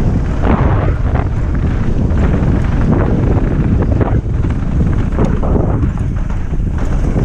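Wind rushing over a mountain-bike rider's action-camera microphone at speed, with tyres rumbling over the dirt trail and the bike knocking and rattling over bumps many times.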